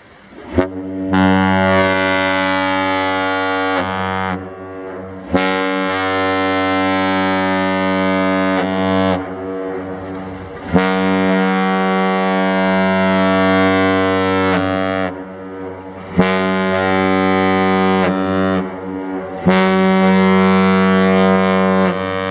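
Large ship's horn sounding five long blasts of a few seconds each, a steady low tone with many overtones.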